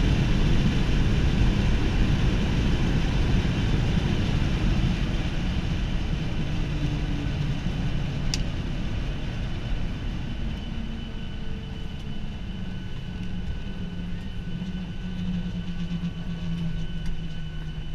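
Cabin noise inside a Ryanair Boeing 737 rolling out on the runway after touchdown: a heavy engine and runway rumble that gradually fades as the plane slows. There is a single sharp click about eight seconds in, and a steadier hum comes through near the end.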